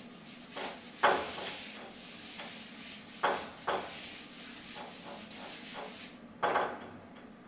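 Handheld eraser wiping marker off a whiteboard, a steady rubbing scrape, broken by a few sharp knocks, the loudest near the end.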